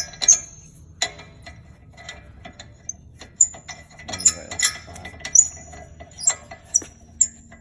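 Metal car brake parts clinking and tapping as they are handled: about a dozen short, scattered clinks, many with a brief bright ring, bunched around the middle.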